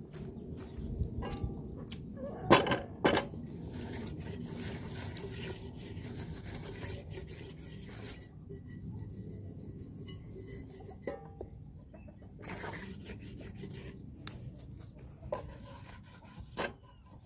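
Hand scrubbing the wet, rusty inside of old cast-iron pots to lift the rust: irregular rubbing and scraping strokes against the iron. Two sharp knocks about two and a half and three seconds in are the loudest sounds.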